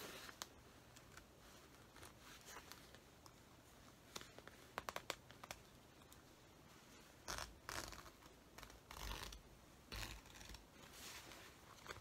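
Seam ripper cutting through the stitching of a coat's zipper seam: faint small clicks and snips as threads part, a quick run of them about five seconds in, and a few louder scratchy rips in the second half.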